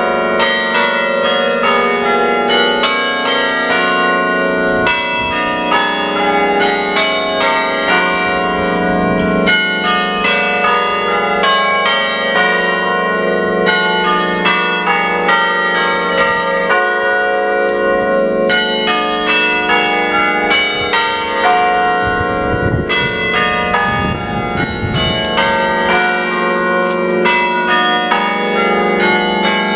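Church bells ringing: a quick succession of strikes at several different pitches, about two a second, each one left ringing under the next.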